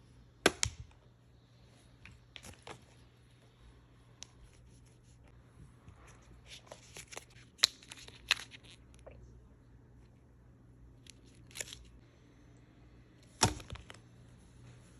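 Barbie doll packaging being handled and opened: scattered sharp snaps, clicks and crackles. There is a loud snap about half a second in, a cluster of them midway, and another loud one near the end.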